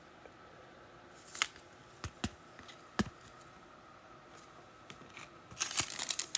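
Trading cards and a pack wrapper being handled: a few light clicks and snaps, then crinkling of the foil pack wrapper beginning near the end.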